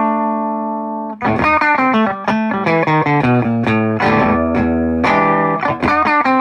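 Electric guitar played through a modded Ibanez TSA15 valve amp with a 6V6 output tube, pedals off and the volume at 12 o'clock, where the amp is just starting to break up. A held chord fades for about a second, then a quick run of picked notes and chords follows.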